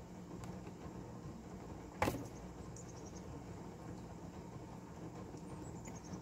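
Faint steady outdoor background noise with a low hum, broken by a single sharp knock about two seconds in. Near the end comes a quick run of high-pitched chirps falling in pitch.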